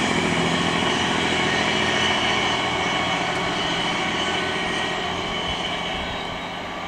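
Yellow DB class 725/726 diesel railcar set running past and moving away. Its engine and wheel noise fade steadily.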